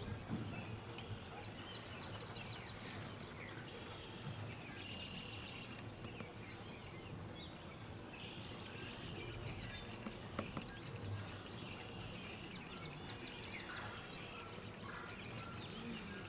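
Outdoor ambience: birds chirping and singing on and off over steady background noise.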